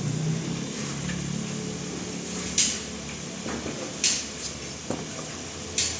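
A low steady hum fades away over the first couple of seconds. Then come five or six sharp, separate knocks spread irregularly over the rest.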